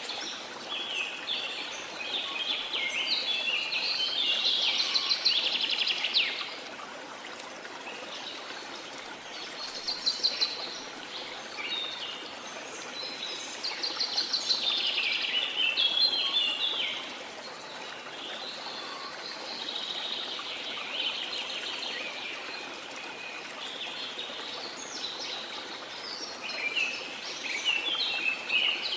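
Birds singing in bursts of rapid, high chirping trills every few seconds, over the steady rush of a waterfall.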